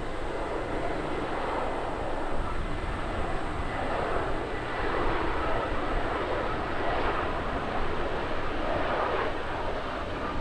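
Pratt & Whitney PW1100G geared turbofans of an Airbus A320neo on final approach to landing, a steady jet rush with a faint high whine.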